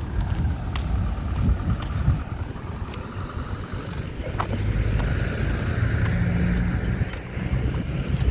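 Motor engine running close by over a low rumble, growing louder about five seconds in and easing off near the end.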